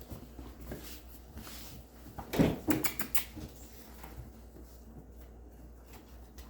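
Goldendoodle puppies playing: scattered light knocks, taps and scrabbling. A louder cluster of knocks comes about two and a half to three seconds in.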